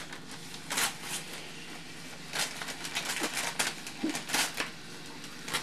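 Gift wrapping paper being torn and crinkled as a small present is unwrapped, in several short rips.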